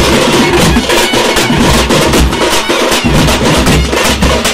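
A street drum band playing a loud, fast, dense rhythm: tamate frame drums beaten with sticks over deep booms from big stick-beaten bass drums and side drums.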